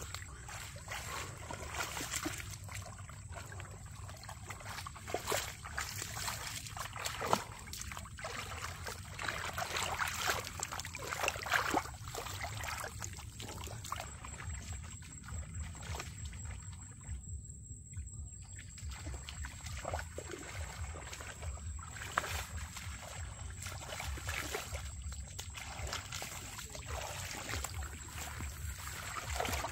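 Shallow muddy water sloshing and splashing in irregular bursts as hands grope through it to feel for fish, with a short lull a little past halfway.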